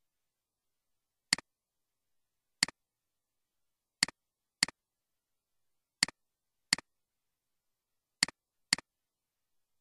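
Computer mouse button clicks: eight short, sharp clicks, some in quick pairs about half a second apart.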